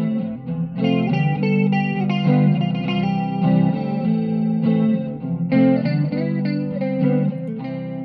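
Intro music led by guitar with effects, chords changing about every second.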